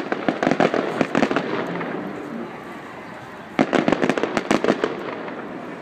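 Fireworks display: two volleys of rapid sharp bangs and pops, the first fading after about a second and a half, the second starting about three and a half seconds in, each trailing off into echoing rumble.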